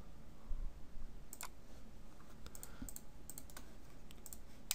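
A handful of irregularly spaced, light computer mouse clicks.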